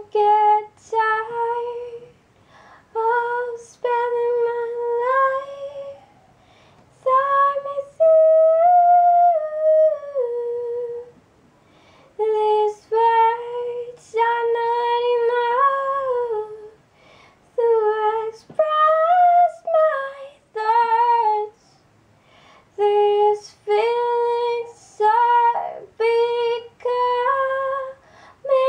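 A woman's voice singing a wordless melody, unaccompanied, in short phrases of one to three seconds with brief pauses between.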